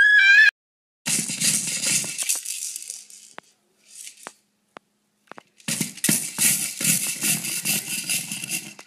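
A baby's high-pitched happy scream cuts off about half a second in. After a short gap, a plastic baby rattle toy is shaken hard in two long bouts of rattling, with a few single clicks in between.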